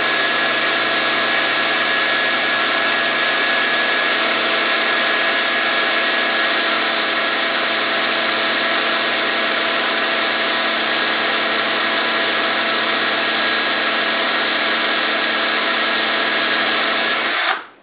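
Cordless drill running at a steady speed as its bit bores into the end grain of a guitar neck's dovetail heel, making the hole for a threaded neck-receiver insert. It stops abruptly just before the end.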